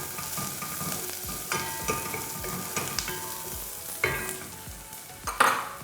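Onion and chopped scotch bonnet pepper sizzling in a little vegetable oil in a pan while a utensil stirs them, with repeated short scrapes and knocks against the pan and one louder scrape near the end.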